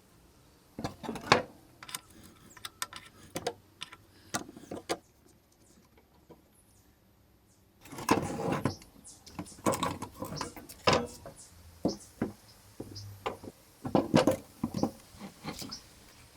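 Hand work on a motorcycle's metal fuel tank: irregular knocks, clicks and clatter of tools and metal, with a pause of about three seconds in the middle before a busier run of knocks.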